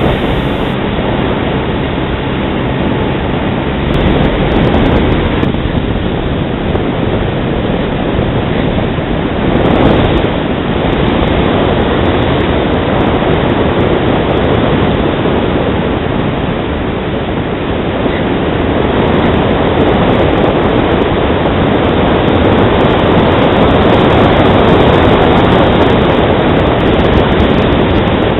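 Airflow rushing over the onboard camera's microphone on a radio-controlled E-flite Carbon-Z Cub in gliding flight. It is a steady, loud wind roar that swells a little louder in the second half.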